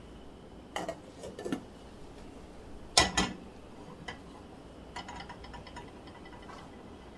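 A non-stick frying pan and a glass-lidded steel saucepan knocking on a gas stove's iron grates: a few clinks and short scrapes about a second in, a loud double clank about three seconds in, then a scatter of faint light ticks.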